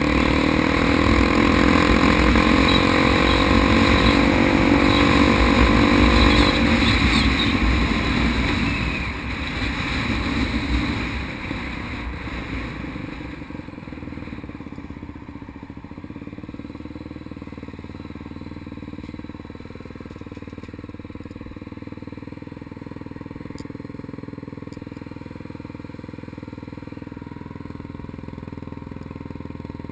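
Honda XR250 Tornado trail bike's single-cylinder four-stroke engine running under throttle, its pitch climbing slightly over the first several seconds before the rider backs off. From about thirteen seconds in it settles to a much quieter, steady low-speed run.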